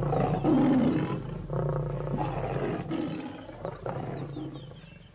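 A pride of lions snarling and growling as they fight over a kill, in loud irregular bursts that die away near the end.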